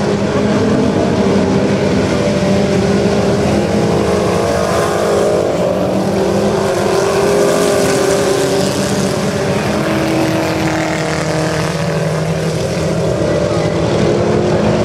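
Several Chevette race cars' four-cylinder engines running hard together, their overlapping engine notes rising and falling as the cars accelerate down the straights and lift for the turns.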